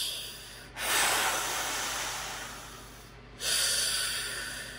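A person doing a Darth Vader breathing impression behind a plastic Darth Vader mask: slow, rasping breaths in and out, each a second or two long, two full breaths after the tail of one at the start.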